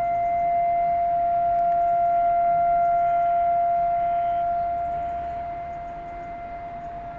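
Civil defence siren sounding one long steady tone, growing slightly louder and then fading about five seconds in. It is the commemorative siren that calls everyone to stop and stand for a moment of silence.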